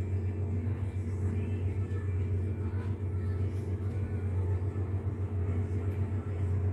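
A steady low rumble with a fluttering level and no distinct events.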